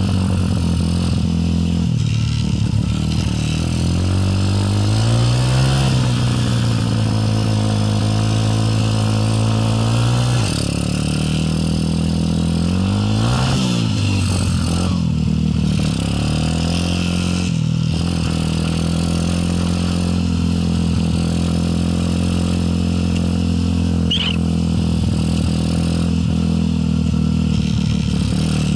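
Motorcycle engine running under way, its pitch climbing as it accelerates a few seconds in, dropping at about ten seconds and again near eighteen seconds as it shifts gear, with a quick dip and rise in revs near fourteen seconds.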